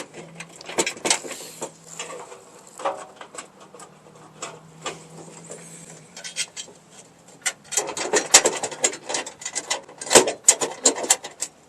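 Irregular metallic clicks, scrapes and knocks of hand tools and bolts as two mounting bolts are worked into a tight fit, busier in the last few seconds.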